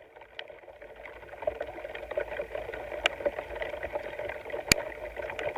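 Field recording of rain hitting a sound recorder's microphone: a steady wash of noise with a few sharp clicks where drops strike the mic.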